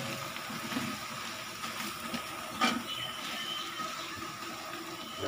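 Biryani masala of onions and whole spices sizzling and bubbling in a large aluminium pot as a steel ladle stirs it, with a single clink of the ladle against the pot about two and a half seconds in.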